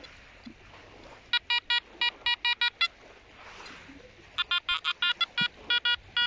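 Nokta Makro Multi Kruzer metal detector beeping as its coil sweeps over a buried target. There are two runs of short, high beeps, about five a second, the first starting a little over a second in and the second after about four seconds, with a pause between. It is the target signal that the detectorist reads as a 2-złoty coin.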